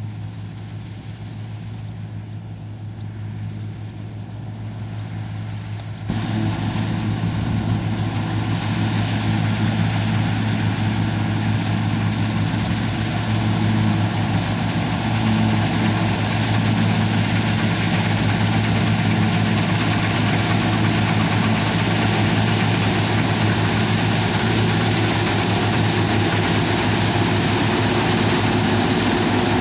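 Combine harvester running steadily while it cuts standing grain, a constant low engine hum. The sound jumps louder about six seconds in and stays loud.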